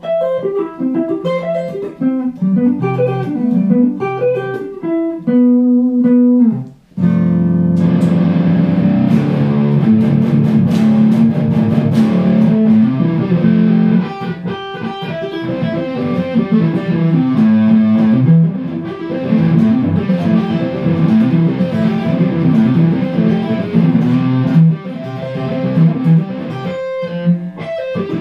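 Hardluck Kings Spider electric guitar, fitted with a Seymour Duncan Nazgul bridge pickup and Sentient neck pickup, being played amplified. It starts with separate picked melodic notes, breaks off briefly about seven seconds in, then goes into thick, continuous fast playing for the rest.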